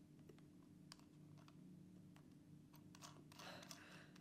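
Faint, scattered clicks and handling noise of a Saramonic BlinkMe wireless-mic unit and its magnetic clip mount being fitted together in the hands, over a faint steady hum.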